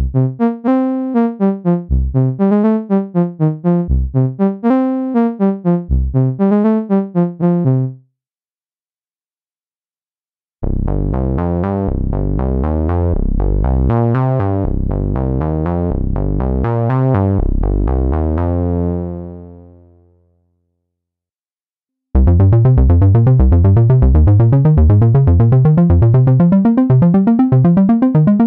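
GForce Oberheim SEM plug-in synthesizer, an emulation of the analog Oberheim SEM, playing three separate demo phrases with short silences between them. First comes a bouncy run of short notes with a low bass note every two seconds, stopping about eight seconds in. Next is a denser, low phrase that fades away, and near the end a fast, rapidly repeating sequence of short notes climbing in pitch.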